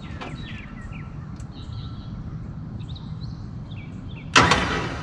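Small birds chirping over a steady low outdoor rumble. About four seconds in, a sudden loud noise, the loudest sound here, fades away over about half a second.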